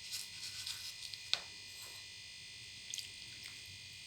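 Faint clicks and scrapes of a spoon in a bowl of gram-flour batter being mixed with water. There is a sharper tap just over a second in and a couple more near three seconds.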